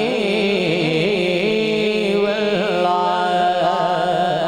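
A solo voice singing a long, ornamented melismatic phrase of a Punjabi devotional naat, the pitch winding up and down without a break.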